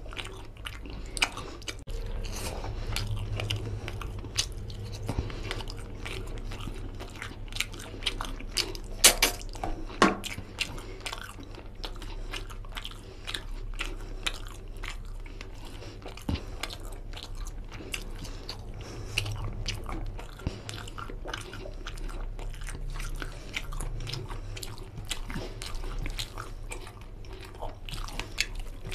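Close-miked chewing of mutton curry and rice, a steady run of short wet clicks, with squishing as fingers mix the oily curry into the rice on the plate. A few louder clicks come about nine and ten seconds in.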